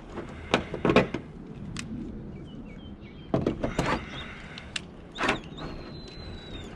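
A car hood being lowered and lifted again: a series of knocks and clunks in three short clusters, with birds chirping in the background.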